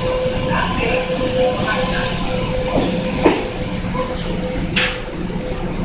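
Kintetsu limited express train pulling out of the platform, its running noise steady with a constant hum and a few sharp clicks about three and five seconds in.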